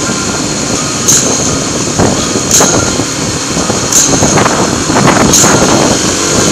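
Kawasaki KLX300SM supermoto's single-cylinder engine running while under way, with short sharp high ticks recurring about every second and a half.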